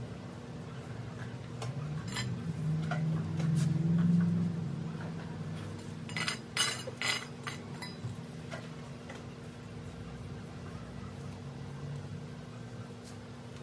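Potting work: soil and a small hand trowel handled around a plant pot while transplanting a syngonium, giving scattered taps and clinks, with a quick cluster of sharp clinks about six to seven seconds in. A steady low hum runs underneath and swells briefly about three to four seconds in.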